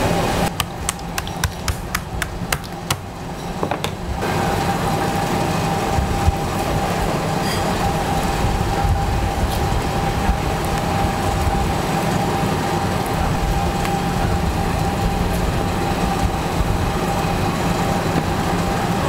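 Steady low mechanical rumble with a constant hum. A few sharp clicks come in the first few seconds.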